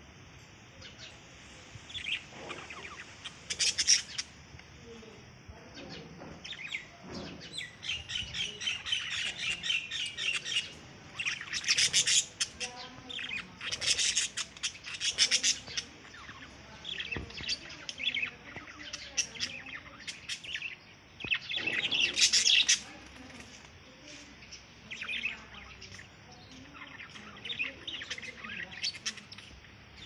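A group of budgerigars chirping and chattering in bursts of rapid, high notes, with short lulls between the bursts.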